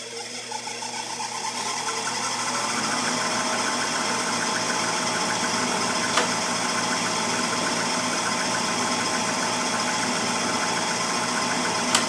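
Tempstar gas furnace starting up: its draft inducer motor spins up over the first couple of seconds, then runs steadily with a rapid, even pulsing. A sharp click comes about six seconds in, and another right at the end as the gas valve's ignition sequence goes ahead.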